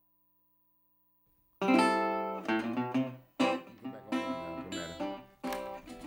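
Silence, then about a second and a half in, acoustic guitar music begins, with chords struck about once a second.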